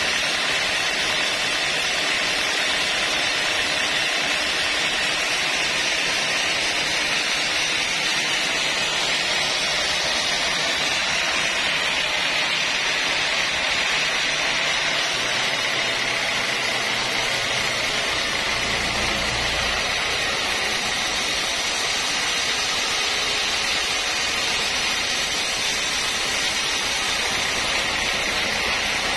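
Band sawmill running steadily, a constant high whirring hiss, with a lower hum joining for a few seconds about halfway through.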